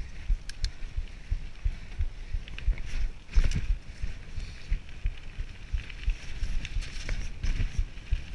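Mountain bike ridden fast down a dirt singletrack: tyres rumbling over the trail and the bike rattling, with irregular low thumps, a few sharp clicks, and the heaviest thump about three and a half seconds in.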